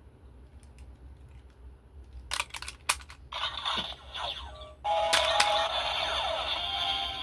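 Super Sentai electronic toy gun: a few plastic clicks of its mechanism, then a burst of electronic sound effect from its small speaker, going over into tones and music.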